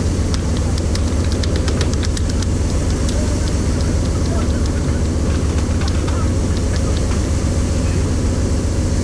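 Fishing boat's engine running steadily with a constant low drone, with scattered sharp clicks and knocks over it.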